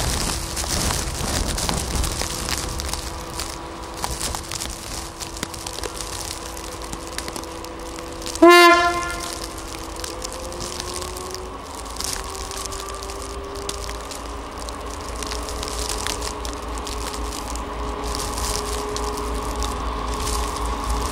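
Diesel locomotive sounds one short, loud horn blast about eight and a half seconds in, over the steady drone of its engine. After the blast the engine note rises as it works harder.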